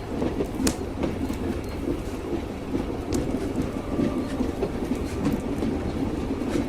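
Train wheels clattering on the rails with the steady low rumble of a moving railway carriage, a few sharp clicks standing out from it.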